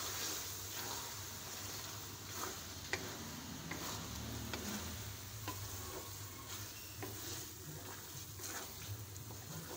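Spatula stirring boiled urad dal into oily masala in a metal pan, with scattered scrapes against the pan bottom over a steady sizzle of frying.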